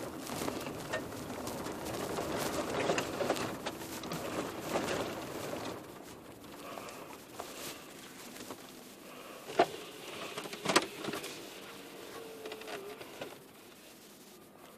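Car running with a rough, crackly road noise that dies down about six seconds in, as if the car is slowing to a stop; two sharp clicks follow a few seconds later.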